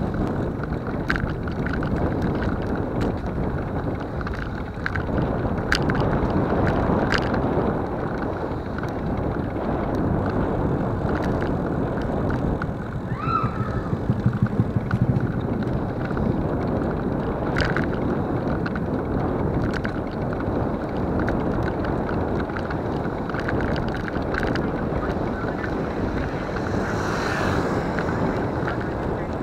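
Wind buffeting the microphone of a camera riding along a concrete road, with steady road rumble and scattered light clicks and rattles.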